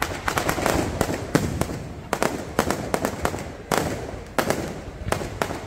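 Fireworks display: aerial shells bursting overhead in a quick, irregular string of sharp bangs and crackles, several a second, in clusters.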